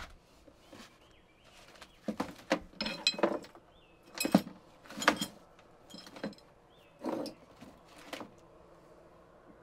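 Things being handled in an open wooden trunk: a string of clinks, knocks and rattles about every second, the loudest about four and five seconds in. A bird chirps faintly a few times in the background.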